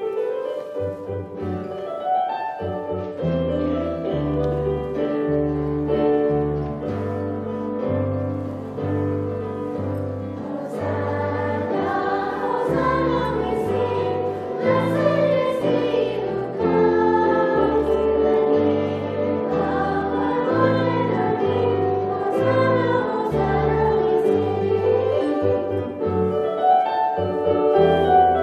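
Choir singing with keyboard accompaniment, held notes over a moving bass line.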